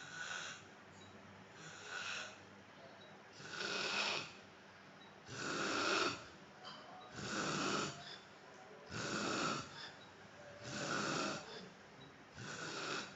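A man snoring in his sleep: a rasping snore about every two seconds, eight in all, with quiet breathing between.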